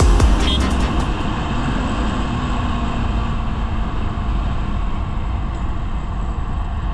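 Yamaha sport motorcycle ridden along a road: steady engine and wind noise. The tail of electronic music fades out in the first second.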